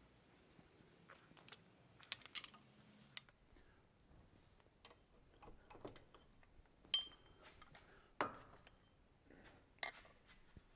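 Hand tools working on the driveshaft bolts under a lifted Jeep: scattered clicks and knocks of metal on metal, a quick run of clicks about two seconds in and one sharp ringing clink about seven seconds in.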